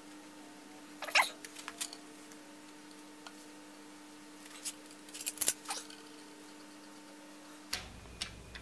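Small metal clicks and clinks as bolts are set into the head of a 16-inch Axelson lathe and finger-tightened, heard singly and in short clusters over a steady low hum. The hum gives way to a lower rumble near the end.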